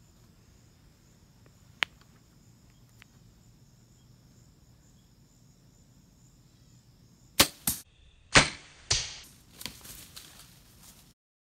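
Faint steady cricket chirping, then about seven seconds in a 70-pound Mathews Z7 Extreme compound bow is shot: two sharp cracks of the release and arrow. A string of loud thumps and crashes follows, fading over about three seconds, as the whitetail buck jumps the string and bolts through the brush.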